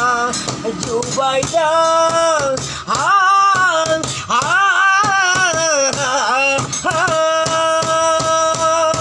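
A man singing long, drawn-out notes that bend and waver, over backing music.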